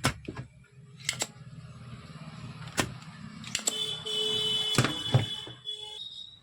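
Clicks and knocks of tools working on a circuit board as the old 4440 amplifier IC is desoldered and pulled out, over a low steady hum. About halfway a thin whining tone joins for about two seconds.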